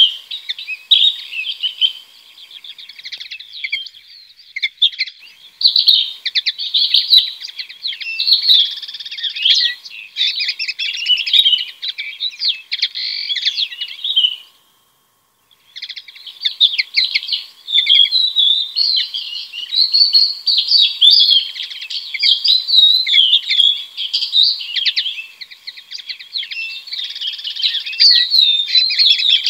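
Small songbirds twittering and chirping in a dense, continuous chatter of quick high notes, broken off by about a second of silence midway.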